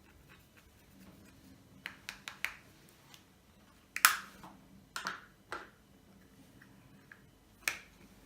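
Fluffy slime being kneaded and stretched by hand, giving sharp wet clicks and pops: a quick run of four about two seconds in, the loudest pop about four seconds in, a few more around five seconds, and a last one near the end.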